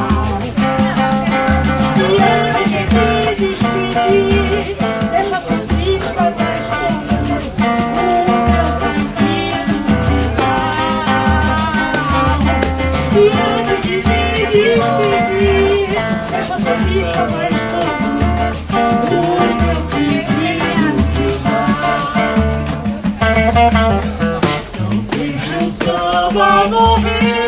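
Live samba played by a small group: acoustic guitar, pandeiro, a hand-played barrel drum keeping a steady low beat, and a shaker, with a woman singing.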